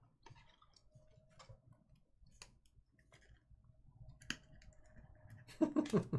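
Trading cards being handled and flipped through: scattered light clicks and taps of card edges and plastic. A short murmur of voice comes near the end.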